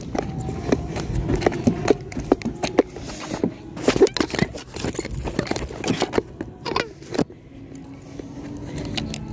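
Close handling noise: irregular knocks, rubs and scrapes of hands on the phone and the landed fish and line, busiest in the middle and dying down near the end.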